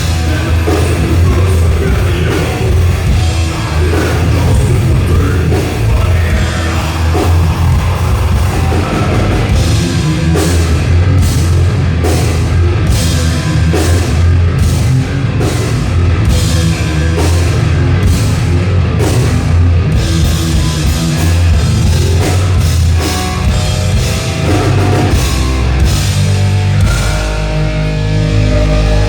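Thrash metal band playing live: distorted electric guitars, bass and a drum kit at full volume, with a run of evenly spaced accented hits, about one and a half a second, through the middle.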